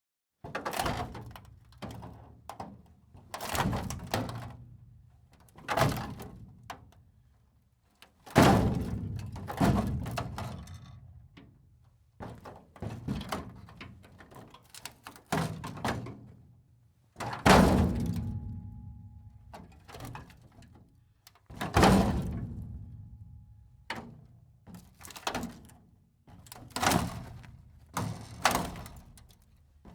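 Metal breaking apart: a series of heavy metallic impacts a second or two apart, each trailing off in a long ring, with a few much louder crashes among them and a faint steady ringing tone partway through.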